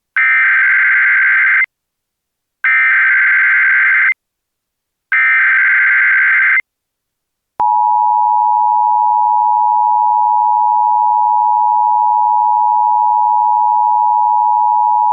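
Emergency Alert System tones: three identical bursts of the SAME header's digital data warble, each about a second and a half long with about a second between them, then the steady two-note attention signal starting about seven and a half seconds in and holding without change. Together they mark the start of an EAS activation, here for an AMBER Alert.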